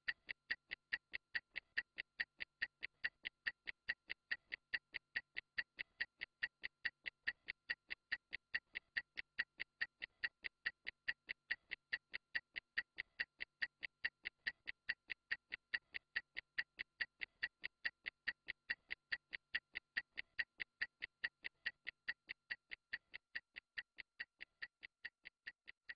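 Stopwatch ticking: rapid, even ticks, several a second, timing a 30-second interval.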